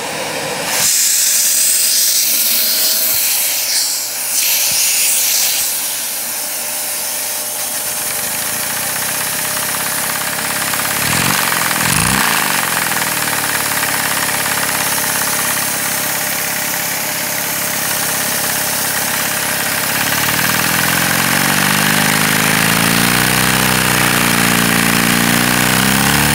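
Vacuum cleaner running with a loud steady hiss of air sucked through a LEGO vacuum engine at full throttle. The engine's rapid clattering comes in about eight seconds in, dips and rises in pitch around twelve seconds, then climbs steadily in pitch from about twenty seconds in as it speeds up.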